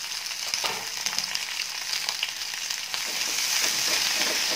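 Shallots, garlic and curry leaves sizzling and crackling in hot sesame oil in a kadai, with a wooden spatula stirring them. The sizzle grows louder about three seconds in.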